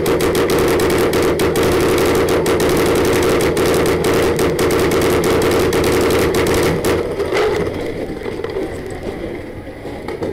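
Paintball marker firing rapidly in long strings, many shots a second, over a steady whir; the firing stops about seven seconds in.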